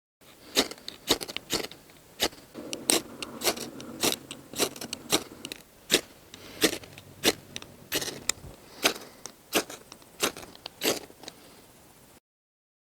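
Ferrocerium rod (firesteel) scraped repeatedly with a metal striker, about twenty quick rasping strokes roughly two a second, throwing sparks onto dry rotten-wood tinder to light it. The strokes stop near the end.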